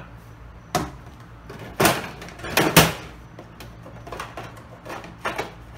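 Handling noise of a dried-up tube of super glue gel being worked open: about six sharp clicks and knocks, loudest about three seconds in.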